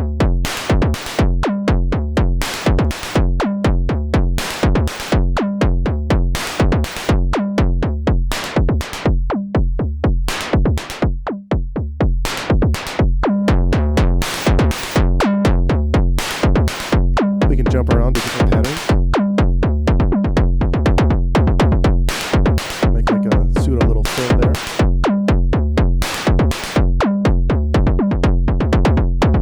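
Moog DFAM analog drum synthesizer playing a steady, fast sequenced beat of synthesized kick drum and noise snare hits.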